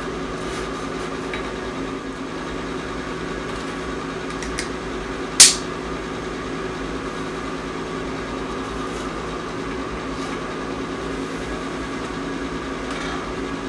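Steady machine hum in the room, with one sharp metallic click about five seconds in as a carabiner's gate snaps shut, and a few faint ticks from the rope and carabiner being handled.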